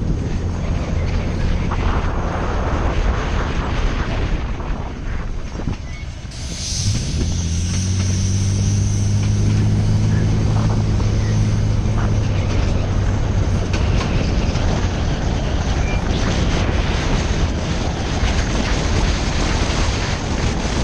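Steady road and wind noise from a vehicle driving alongside a train. About six seconds in, a low steady drone rises in slightly, holds for about five seconds, then fades.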